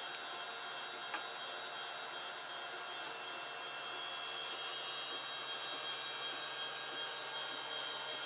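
3D printer's cooling fans running, a steady whirring hiss with a faint click about a second in.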